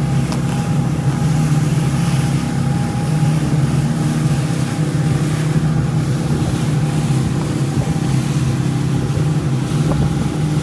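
Motorboat engine running steadily: a constant low hum with a fainter higher tone above it, over wind and water noise.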